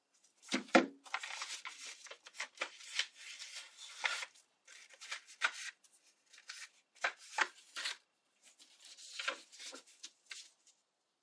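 Book-page paper rustling and crinkling in irregular bursts as the pages are handled and folded, with a single knock about a second in.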